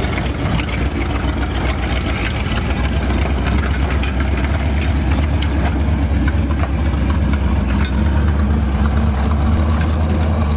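1979 Chrysler New Yorker's V8 idling steadily, with the owners believing it has no exhaust system; the low drone steadies and grows a little stronger about three seconds in.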